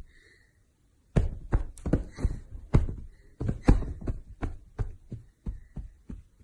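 A quick, irregular series of thumps or knocks, about three a second, starting about a second in.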